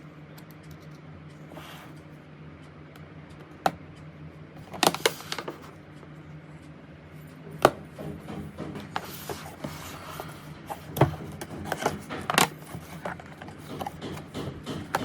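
Handling noise: scattered sharp clicks and knocks with some rubbing, the loudest knocks about four, five and seven and a half seconds in and again near eleven and twelve and a half seconds, over a low steady hum.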